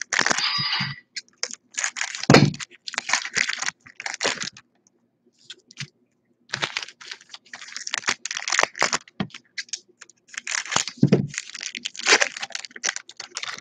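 Hands tearing open and handling trading card packs: crackling, crinkling wrapper and cardboard noise in irregular bursts with a short pause partway through, and two dull thumps on the table, about two seconds in and again near the end.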